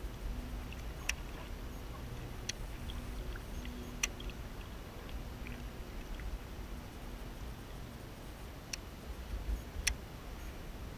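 Low rumble of water and wind around a small fishing boat, with about six sharp, isolated clicks spread through it.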